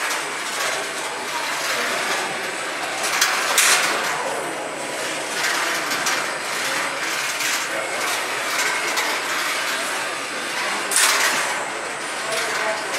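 Steady mechanical whirring and rattling from small combat robots driving in an arena, with a few sharp knocks about three seconds in and again near the end.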